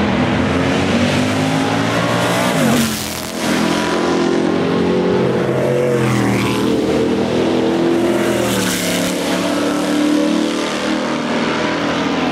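Several historic sports-racing car engines running hard on track, overlapping and rising and falling in pitch as they rev and change gear. About three seconds in, one car goes by close with a sharp drop in pitch.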